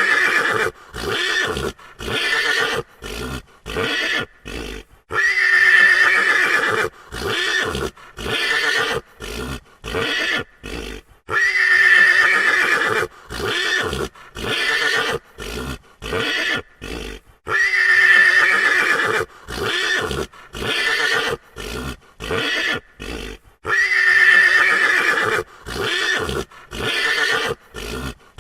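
A frightened horse whinnying: a long, high whinny followed by a string of shorter neighing calls with short gaps between them. The same sequence repeats about every six seconds.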